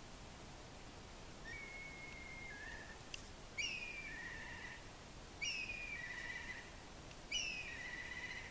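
A bird calling over faint outdoor hiss: first a held whistle that steps down in pitch, then three repeated calls about two seconds apart, each a sharp falling whistle followed by a buzzy note.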